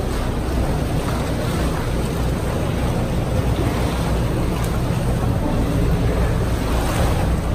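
Tour boat's engine running at a steady low speed, with water sloshing against the hull and rocks.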